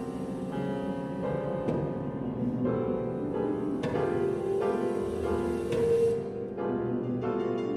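Piano music: fast repeated notes and chords that ring on, the harmony changing about once a second.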